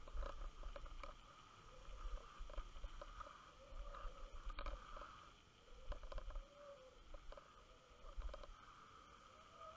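Muffled underwater sound picked up by a camera in a waterproof housing as it moves over a mussel bed: irregular low rumbles and scattered short knocks over a faint steady hum with a wavering lower tone.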